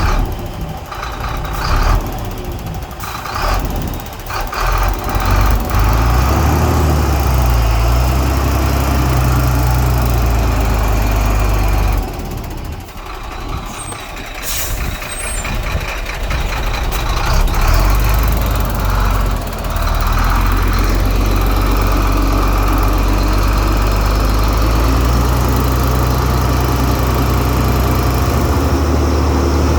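Heavy diesel earthmoving machinery running under working load, the engine note shifting up and down, with a few sharp clanks in the first few seconds. It eases off about halfway through, then settles into steady, loud running.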